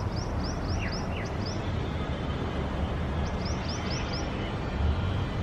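Steady low rumble of distant city traffic, with a small bird giving quick runs of short, high chirps twice.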